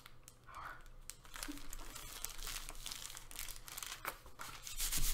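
Thin, crisp paper crinkling and rustling as hands fold it over the edges of a card and press it flat, with many small crackles. The rustling grows louder near the end.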